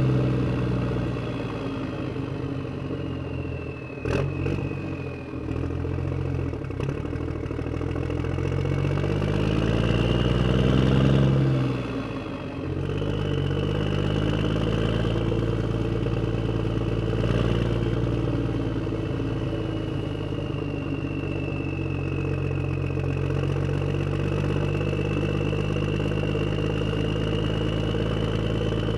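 Miniature excavator running while digging soil: a steady motor sound with a whine that slowly rises and falls. It works harder and rises in pitch about eight to eleven seconds in, then drops back suddenly. A few clattering knocks come about four seconds in.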